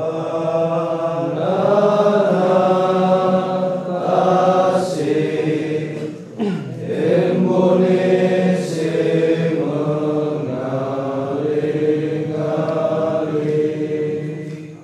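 Men's voices chanting a Minahasa ritual prayer in long held notes that shift pitch every second or so, with a short break and a downward slide about halfway through, then fading away just before the end.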